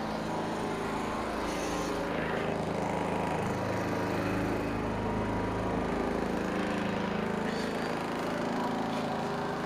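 Generac GP3300i inverter generator running steadily with no load, its small single-cylinder engine holding an even pitch.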